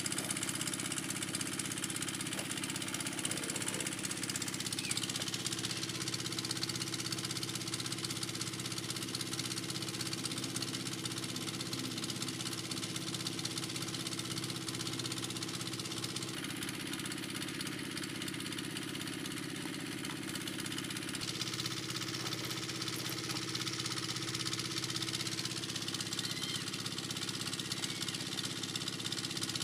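A motor running steadily, a constant mechanical drone with a steady hum that holds through without starting, stopping or changing speed.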